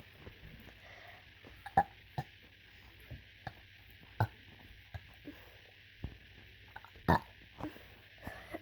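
A person burping repeatedly in short, separate bursts, about seven in all, the loudest about two seconds in and near the end, over a faint steady hiss.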